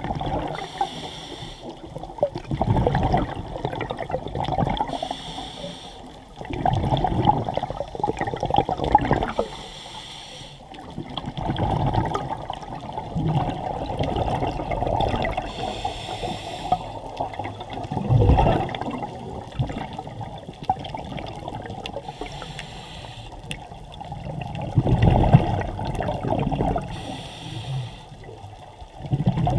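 Scuba regulator breathing heard underwater. A short hiss on each inhale comes about every five to six seconds, between rumbling bursts of exhaled bubbles.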